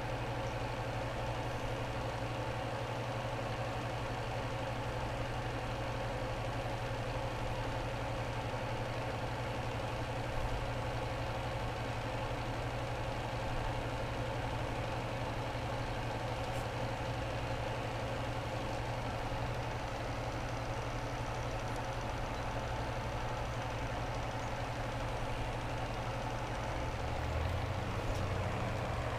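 Small airbrush air compressor running with a steady, even motor hum: a low drone with a few fainter steady tones above it.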